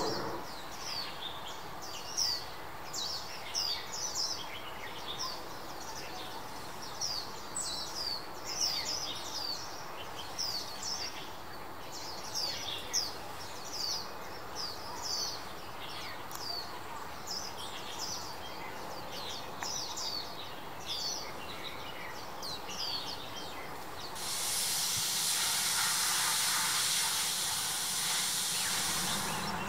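White-eyes calling: runs of thin, high, downward-slurred chirps, several a second. About 24 s in they give way to a loud steady hiss.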